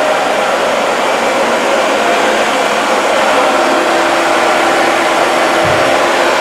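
Dyson DC40 MKII upright vacuum cleaner running steadily while vacuuming a dirty rug: a loud even rushing hiss with a few held tones, and a brief low bump near the end.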